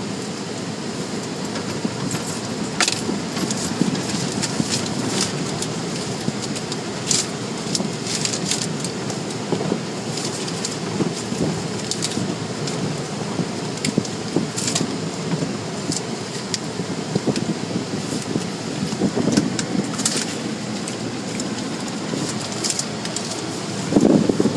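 Automatic car wash heard from inside the car: water spray and soap rushing and pattering on the windshield and body, with scattered sharp ticks of droplets on the glass. In the last moment it grows louder and rougher as the wash brushes sweep over the windshield.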